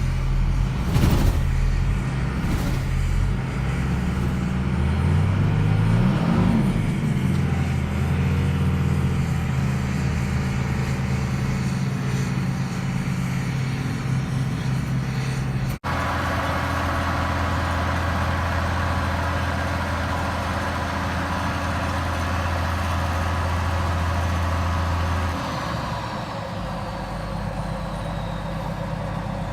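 Heavy vehicle engine running, its pitch rising about six seconds in. After an abrupt break just past the middle it runs steadily, then settles lower and quieter about 25 seconds in.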